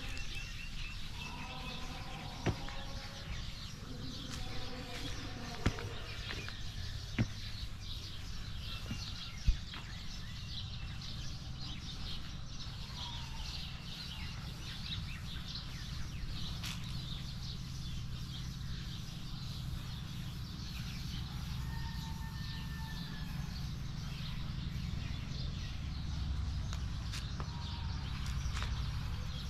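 Assorted birds chirping and calling over a steady low rumble, with a few sharp knocks in the first ten seconds.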